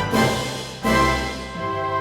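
Orchestra playing a French quadrille: two loud accented chords, at the start and just under a second in, followed by softer held chords.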